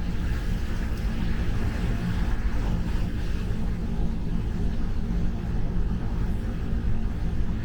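Steady in-cabin road and wind rumble of a Mazda3 at expressway speed through heavy rain, with the hiss of rain and tyre spray coming in through a slightly open window.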